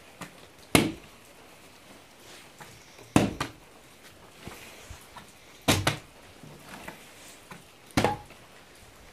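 A partly filled plastic water bottle landing on wooden boards after flips: four thuds about two and a half seconds apart, each followed by a quick second knock as the bottle bounces and tips over rather than landing upright.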